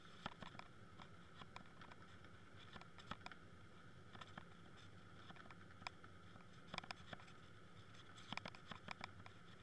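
Faint, muffled underwater sound heard through a camera housing towed near the seabed: a steady low hum with scattered irregular clicks and ticks, a cluster of them near the end.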